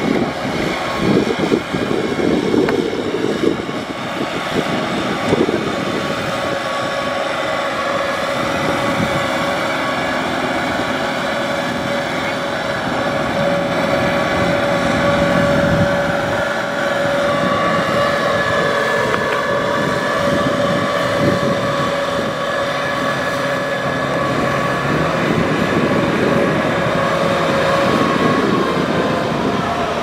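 Farm tractor's diesel engine running steadily under load as it tows a sack-laden trailer through a flooded paddy, with the tyres churning through water and mud.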